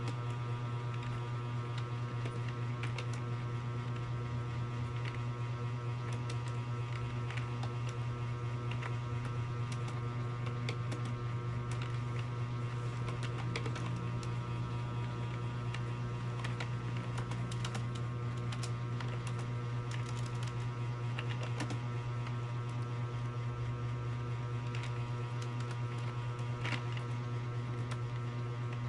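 Keyboard typing, many irregular keystroke clicks, under a louder steady electrical hum.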